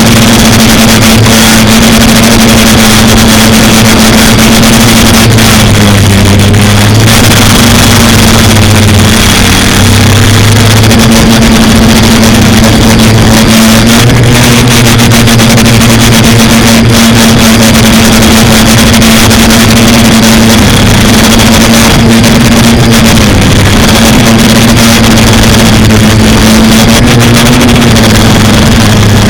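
Quadcopter's electric motors and propellers running loudly in flight, a steady buzzing hum whose pitch steps up and down slightly every few seconds as the throttle changes.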